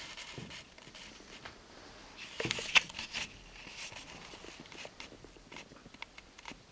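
Scattered small clicks and light rustling in a quiet, room-like space, with a short flurry of sharper clicks about two and a half to three seconds in.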